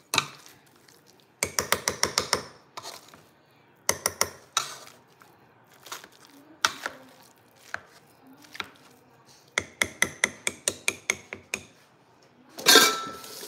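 Wire potato masher striking the bottom of a metal pot while mashing boiled potatoes: quick runs of clinking strokes, several a second, in three bursts with single knocks in between. A louder rustling scrape comes near the end.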